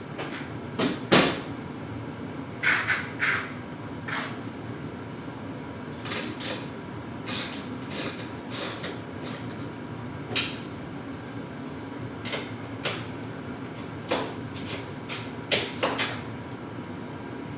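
Irregular metallic clicks and knocks, some in quick pairs or small clusters, from hand tools and loosened bolts on garage door track brackets being adjusted and tightened, over a steady hum.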